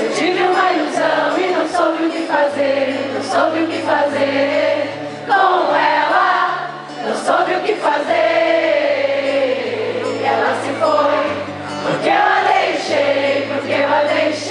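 Live music: several voices singing a melody over held bass notes that step from one to the next.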